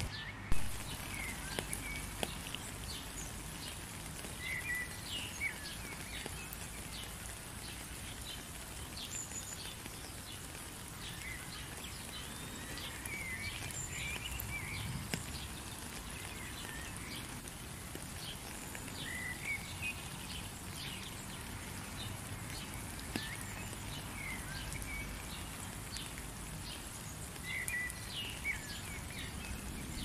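Steady rain with many short bird chirps and calls scattered throughout. A brief dropout and a sharp click about half a second in.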